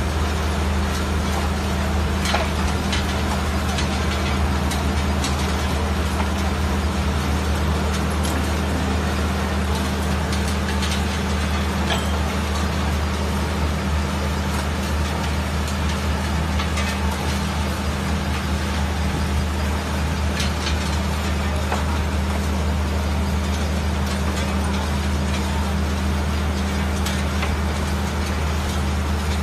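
Heavy-mineral zircon processing plant running: a steady low machine hum under a constant broad rushing noise, with no change or break.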